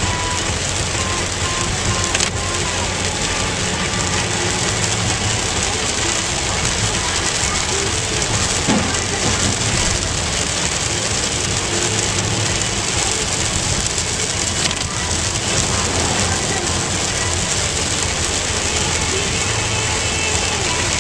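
Heavy rain hitting a car's roof and windshield, mixed with steady tyre and road noise on a flooded highway, heard from inside the moving car.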